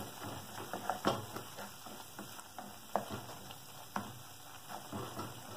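Wooden spatula scraping and knocking against the pot while stirring a thick chili-powder masala frying in oil, a run of irregular small clicks with a few sharper knocks about one, three and four seconds in.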